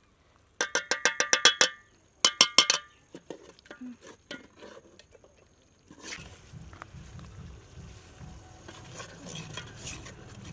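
A metal utensil rapped quickly against metal, two fast runs of ringing clinks in the first three seconds, then a ladle stirring thick curry gravy in a metal cooking pot with a steady soft scraping.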